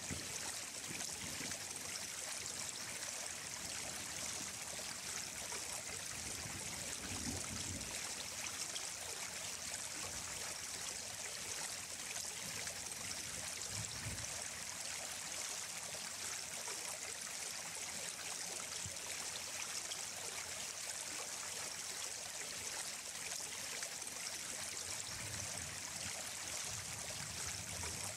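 Running water flowing steadily, an even rushing hiss like a stream, with a few brief low rumbles.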